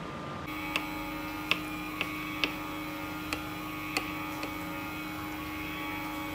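Electric ice cream maker's motor humming steadily as it churns, with scattered light clicks of a knife against a wooden board.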